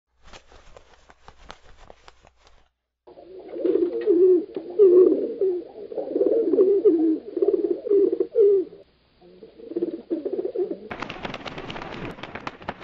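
Feral pigeons cooing, a low warbling coo repeated over and over from about three seconds in, with a short break, until near the end. Before it there are faint light clicks, and near the end a louder rustling noise with rapid clicks takes over.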